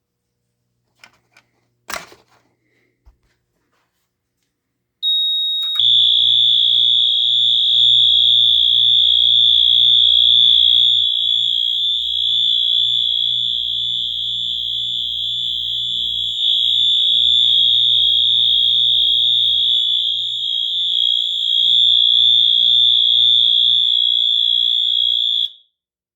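Wheelock MT-24-WM multitone fire alarm horn sounding a loud, steady, high-pitched continuous tone for about twenty seconds, then cutting off abruptly. A single click comes a few seconds before the horn starts.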